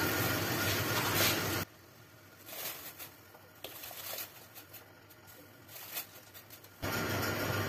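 Steady hiss of water boiling in a steel pot. After a couple of seconds it cuts off abruptly into near silence, broken by a few faint splashes as soaked rice is poured in, and the boiling hiss returns near the end.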